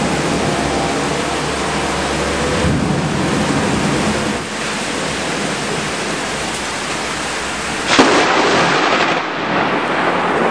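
Heavy rain falling steadily through a thunderstorm, with a low rumble of thunder in the first few seconds. About eight seconds in comes a sudden loud crack of thunder from a close lightning strike, fading over a second or so.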